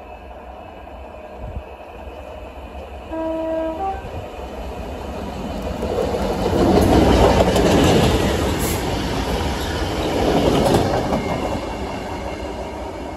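A pair of locomotives running light approaches and passes close by. They sound a short two-tone horn about three seconds in, then the engine and wheel-on-rail noise swells to its loudest in the middle, with rail clicks as they pass, and dies away near the end.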